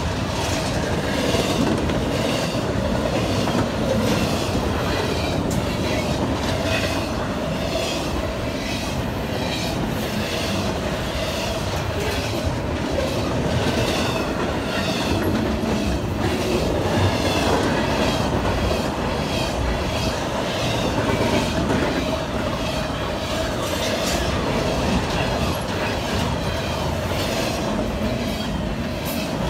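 Double-stack intermodal freight train rolling past, its cars rumbling steadily with a rhythmic clickety-clack of wheels over rail joints and a steady wheel squeal underneath.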